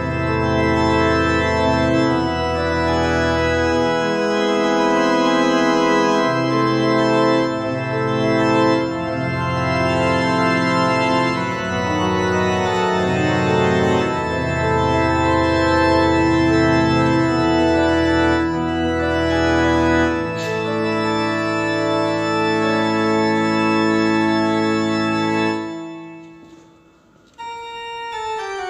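Organ music: slow, sustained chords over deep held bass notes. It fades away near the end, then a new, higher passage starts abruptly.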